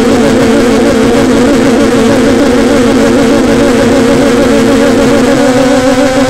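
Homemade noise instrument sounding a loud, steady wavering drone, its pitch rising slightly about five seconds in.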